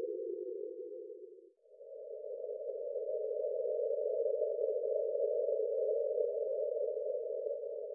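Electronic breath-pacing sound made of filtered noise. A lower whoosh fades out about one and a half seconds in, then a slightly higher whoosh swells up and holds steady. Each whoosh marks one half of a slow breath.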